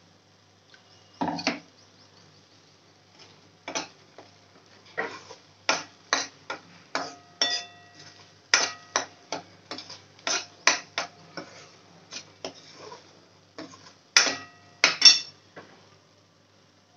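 Steel ladle clinking and scraping against a metal kadhai while a thick masala paste is stirred: one sharp clink a little over a second in, then a quick run of clinks, some ringing briefly, from about five seconds in, loudest near the end.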